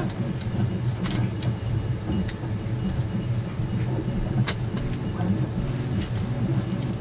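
Steady low hum of a 3D printer running in the background, with a few sharp clicks as screws are backed out of a 3D-printed ABS camera bracket with a cordless drill-driver.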